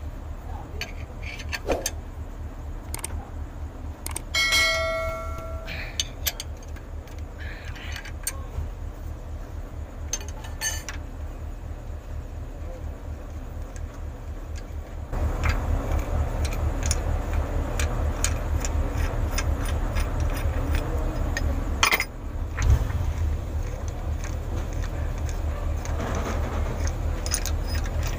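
Metal clinks and knocks as steel pressing tools, long bolts with pipe sleeves, are unscrewed and lifted off a cylinder block, with one clear ringing clang about four and a half seconds in and a sharp knock near the end. A steady low machine hum runs underneath and gets louder about halfway through.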